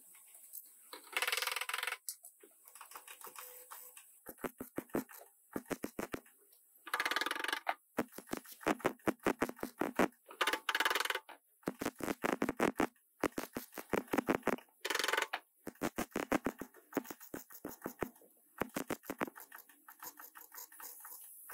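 Wire-feed MIG welder crackling in short bursts as a sheet-steel rear quarter panel is tack- and stitch-welded in place, with quiet gaps between the bursts.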